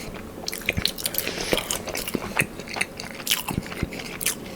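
Close-miked chewing of crispy buffalo cauliflower wings: a steady run of crunches and mouth clicks.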